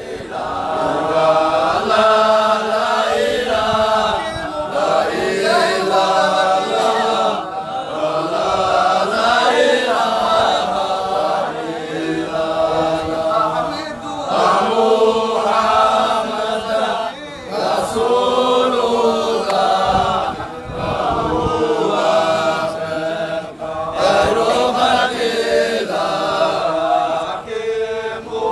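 Sufi dhikr: a group of voices chanting together in short phrases repeated over and over.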